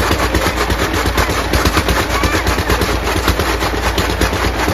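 An engine running steadily with a rapid, even knocking beat over a low hum.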